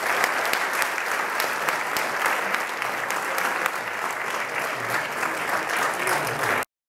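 Audience applauding steadily, a dense patter of many hands clapping, which cuts off suddenly near the end.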